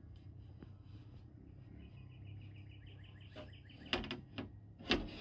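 Sharp knocks and clicks of the replacement door glass bumping against the truck door's frame and channels as it is worked into place, the loudest two about four and five seconds in. Before them a bird trills rapidly for about two seconds in the background.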